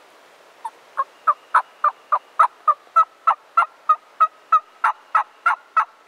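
A long, even run of turkey yelps, about eighteen notes at roughly three a second.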